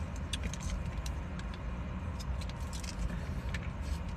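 Scattered light clicks and crinkles from handling a paper-wrapped burrito and fries with long acrylic nails, over a steady low rumble inside the car.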